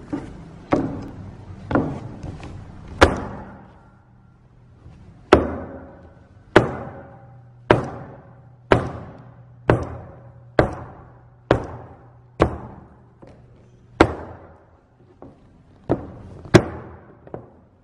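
High-heeled shoes striking a wooden tabletop in slow, steady steps, about one a second, each knock echoing in a large room. The loudest knock comes about three seconds in.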